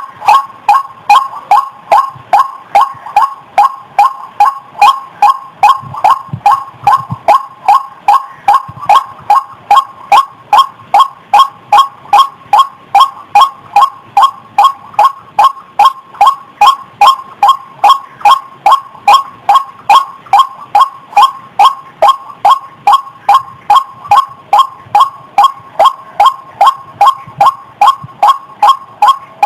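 White-breasted waterhen calling: a long, unbroken run of loud, identical harsh notes repeated evenly about twice a second.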